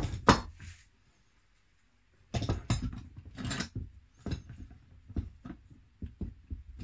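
Knocks of a hammer and a steel screw clamp handled on a wooden workbench, loudest near the start. After a short pause comes a clatter of the clamp being set on a small wooden workpiece, then a run of light clicks, about three a second, as the clamp is screwed tight.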